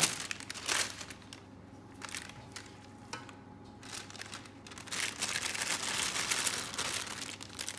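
Thin disposable plastic piping bag crinkling and rustling as it is handled and filled with choux dough. A few crackles come early, then a dense stretch of rustling about five seconds in.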